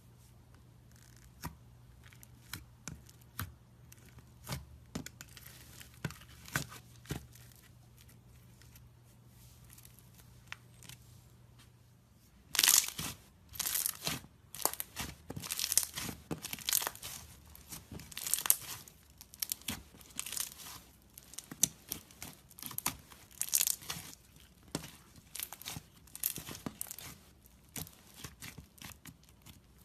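Iceberg slime, its hardened top crust crackling and crunching as it is pressed and pulled apart. The crackles are sparse at first, then come thick and loud from about halfway through.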